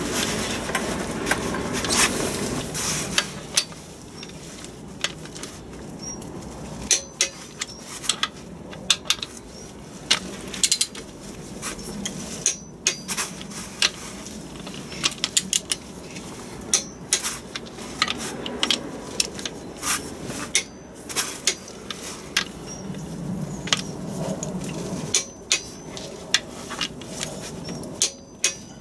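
Socket wrench tightening flywheel bolts: many sharp metallic clicks and clinks, irregularly spaced, as the socket goes onto each bolt and the wrench is worked.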